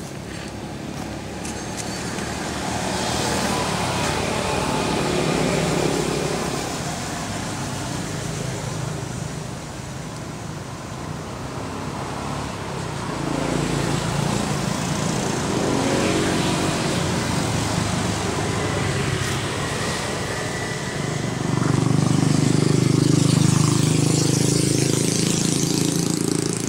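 Engines of passing road vehicles, swelling and fading a few times and loudest in the last few seconds.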